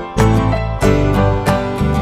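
Background music led by a strummed acoustic guitar, with chords struck about every half second.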